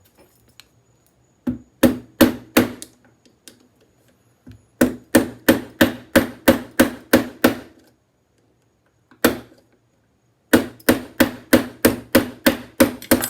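Runs of rapid metal-on-metal tapping, about four blows a second in three bursts with a pause in the middle: a screwdriver being struck to drive an assembly off a Yale Superior euro lock cylinder, which is not yet giving way.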